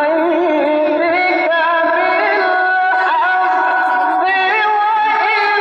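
A solo voice in a slow, ornamented melody, holding long notes that waver and bend between them.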